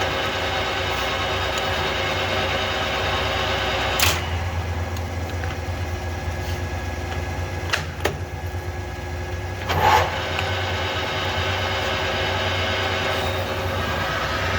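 Harrison M390 geared-head engine lathe running at 625 RPM with the power feed engaged: a steady gearbox hum with several whining tones. Sharp clicks or knocks come about four, eight and ten seconds in.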